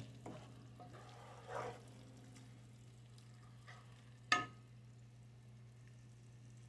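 Ground pork cooking in a little water in a frying pan, a faint sizzle, stirred with a wooden spoon over a steady low hum. A single sharp knock a little over four seconds in.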